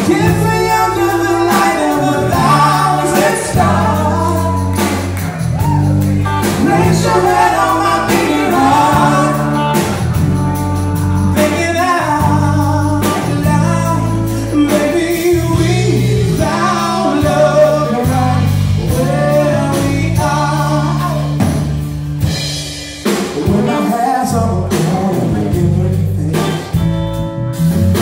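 Live band music: a male singer with drums, guitar and keyboard, sung and played loud and continuous.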